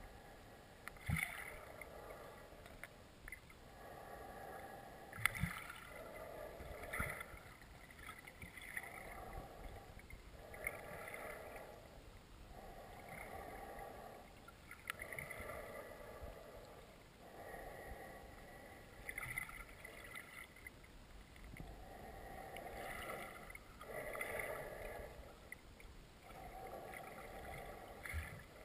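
Regular swishing strokes of a kayak paddle through the water, about one every one and a half to two seconds, heard muffled through an underwater camera, with a few sharp knocks.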